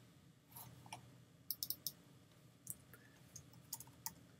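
Faint computer keyboard and mouse clicks: about ten light, irregular taps, typical of typing text into a field.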